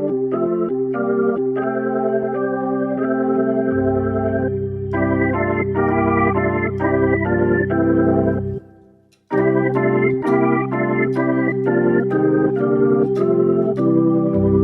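Organ tone on a Casio AiX-sound-source keyboard, played as sustained chords with a moving melody and held bass notes. The playing stops briefly about two-thirds through, then starts again.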